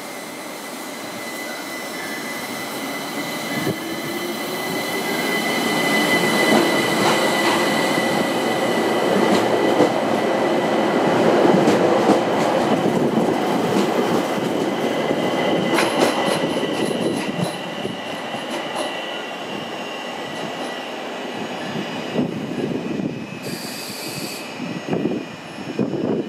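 ÖBB Talent electric multiple unit running past close by, its motor whine rising in pitch a few seconds in as it gathers speed, with a steady high wheel squeal. It is loudest in the middle as the cars pass, then fades to wheel clatter and clicks, with a brief hiss near the end.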